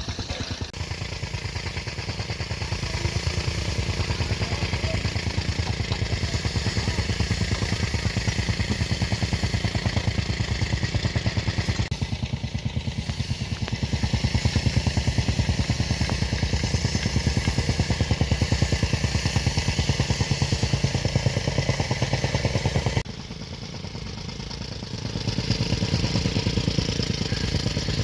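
Engine of heavy construction machinery running steadily with a fast, even pulse and some clatter. It drops in level for a couple of seconds near the end, then picks up again.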